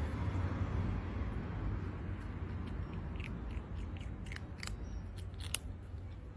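A calico kitten crunching dry cat kibble, a quick string of crisp crunches that comes mostly in the second half, over a steady low background rumble.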